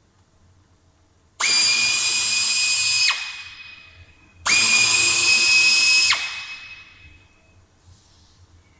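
Power drill-driver run twice at steady speed for about a second and a half each time, with a high whine. Each run stops abruptly, as a bumper fastener is driven.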